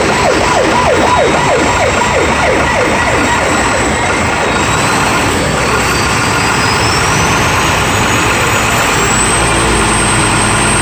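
Heavy truck engine being free-revved while parked, running loud and steady, with a thin whine that climbs in pitch through the second half as the revs build.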